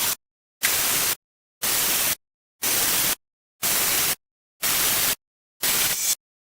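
Bursts of static hiss, about one a second, each lasting about half a second and cutting off sharply to dead silence between.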